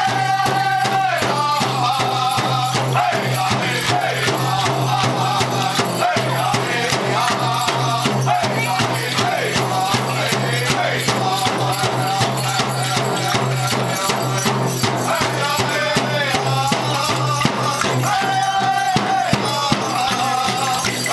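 Powwow music: a steady drumbeat with group singing, and the jingling of bells on the dancers' regalia.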